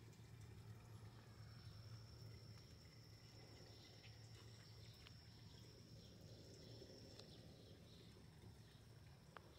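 Near silence: faint background with a steady low hum and a thin, steady high-pitched whine, broken by a few faint ticks.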